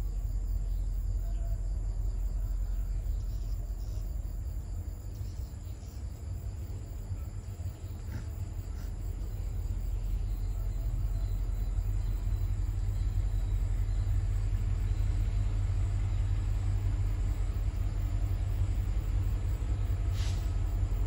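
Low diesel rumble of a pair of EMD G26MC-2U (CC202) locomotives approaching at the head of a loaded coal train. It grows louder over the last several seconds.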